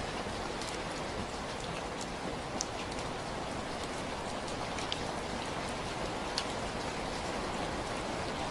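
Steady rain falling, an even hiss with scattered individual drops ticking sharply on a surface, the clearest about two and a half, five and six and a half seconds in.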